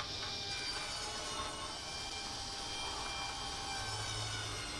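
Power saw running steadily while cutting thin wooden lattice strips, with a continuous motor whine and cutting noise.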